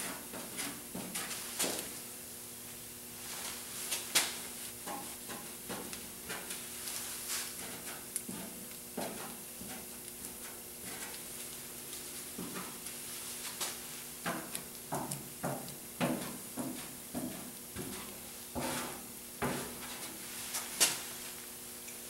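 Plastic spreader dabbing and scraping short-strand fiberglass filler into the welded seams of a car's trunk floor pan: irregular soft scrapes and taps, with a steady hum underneath.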